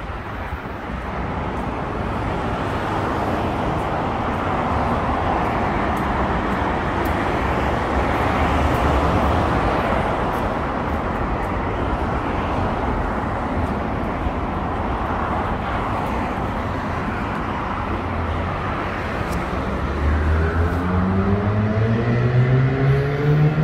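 Road traffic passing, a continuous rush of cars that swells and eases. Near the end, a vehicle's engine accelerates, its note rising steadily.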